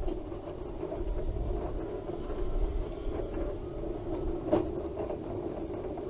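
Wheelchair rolling along a path: a steady hum with low rumble, and one sharp knock about four and a half seconds in.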